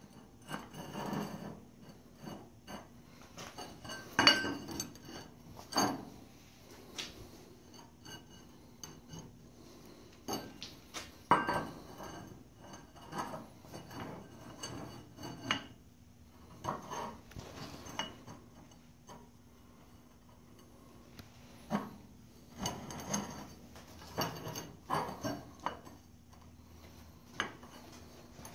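Lengths of 1-inch square steel tubing being handled and set down on a steel table: scattered clanks and clinks of metal on metal, some with a short ring after them, between quieter stretches.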